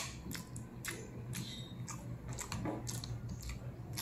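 A person chewing and eating pancit canton noodles close to the microphone, with many short, irregular wet mouth clicks.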